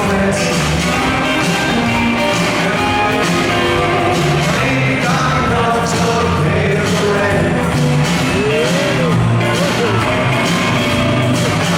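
Rockabilly trio playing live: upright bass, drums and electric guitar, with some singing.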